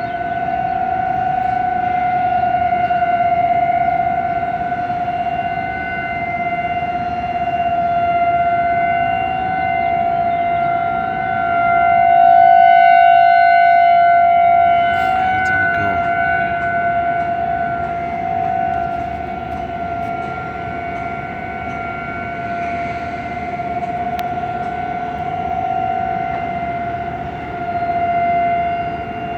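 Outdoor warning sirens sounding a steady tone in a weekly test, slowly swelling and fading in loudness, echoing off tall buildings.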